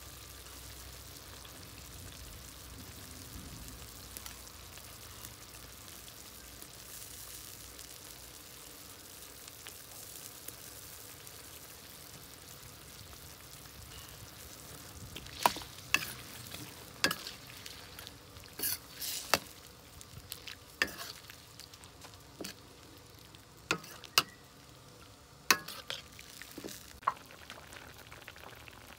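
Shrimp and vegetables sizzling steadily in sauce in a wok. About halfway through, stirring starts, and a run of sharp clanks and short scrapes of a utensil against the wok sounds over the sizzle.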